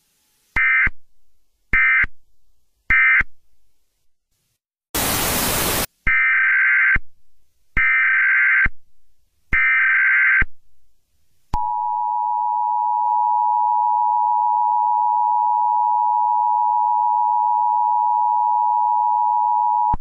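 Emergency Alert System broadcast tones. First come three short digital data bursts, then about a second of loud static hiss, then three longer SAME header data bursts announcing an Emergency Action Notification. A little past halfway through, the steady two-tone EAS attention signal starts and holds.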